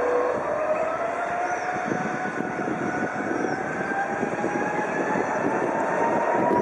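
Twin Rolls-Royce Trent 772B turbofans of an Airbus A330-200 on its takeoff roll: a steady rumble with an engine whine that rises slowly in pitch throughout.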